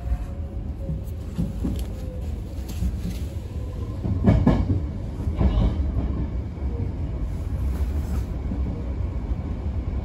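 Sanyo Electric Railway electric train running, heard from inside the front cab: a steady low rumble of the running gear, with the wheels knocking over rail joints and points, loudest about four seconds in.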